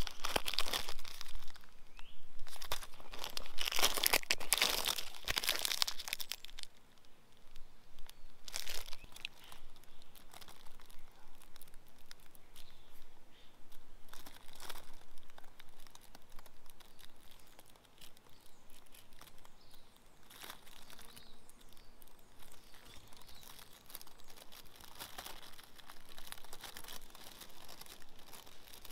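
A foil emergency blanket crinkling and rustling as it is handled and unfolded. The crackling is loudest and densest in the first six seconds, then turns into softer, scattered crinkles.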